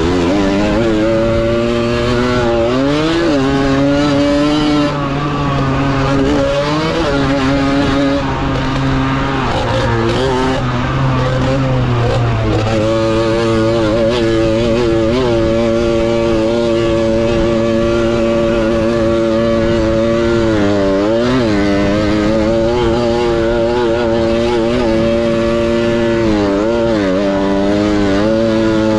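Tuned Balkan 50 moped's small two-stroke engine revving hard under race load, its pitch climbing, then dropping sharply several times before rising again, as the rider shifts and backs off for turns.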